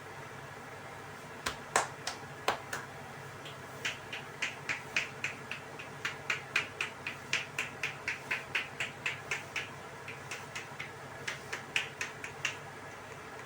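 Massage tapping with the hands on the head: a few sharp slaps, then a steady run of about three quick taps a second, a short pause, and a last handful of taps.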